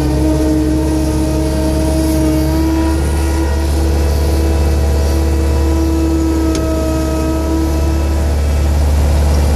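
Front-end loader's engine running steadily while it carries a chained log, a strong low drone with a steady whine above it. A single light click sounds about six and a half seconds in.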